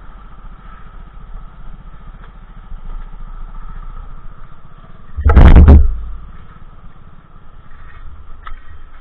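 Honda Monkey's small single-cylinder four-stroke engine running steadily. About five seconds in there is a loud rush of noise lasting under a second.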